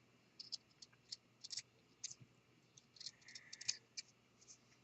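Scissors trimming a fleece seam allowance: a scatter of faint, short snips and clicks, with a light rubbing of fabric about three seconds in.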